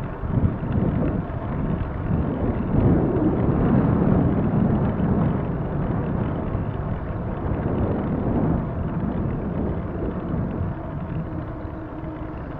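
Wind buffeting the microphone of a camera riding along a road: a steady noisy rush, a little louder a few seconds in.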